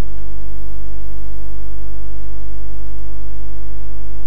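Loud, steady electrical mains hum: a low buzz with a long row of overtones, unchanging throughout.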